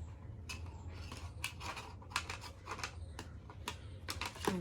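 Plastic packaging being snipped and worked off a wireless neckband's cable: a string of short, crisp, irregular clicks and crackles.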